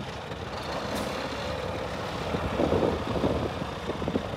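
Scania P400 hooklift truck's diesel engine idling, a continuous low rumble, with louder irregular bursts of noise over it from about two-thirds of the way through.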